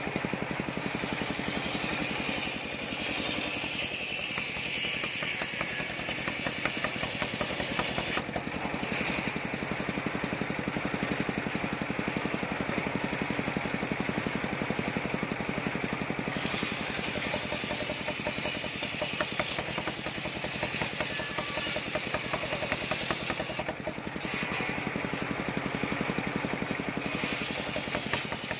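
Large mobile circular sawmill running steadily, its engine-driven toothed blade ripping through a waru log, with a high cutting hiss over the steady drone of the engine. The cutting noise thins out briefly a few times as the log is fed through.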